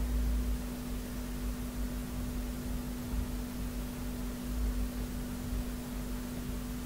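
A steady low electrical hum with a faint hiss under it, and an uneven low rumble.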